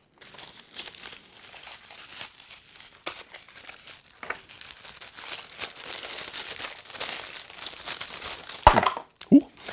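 Paper wrapping rustling and crinkling as small toy parts are unwrapped by hand, with a cardboard packaging insert being handled. Two short, loud thumps near the end.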